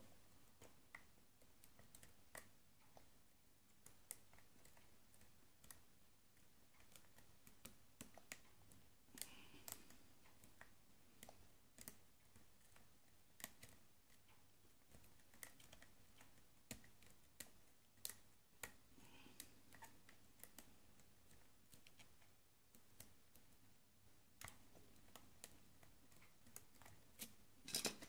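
Faint, irregular clicks and ticks of a lock pick setting the serrated pins of an American brass padlock, held under tension in the keyway.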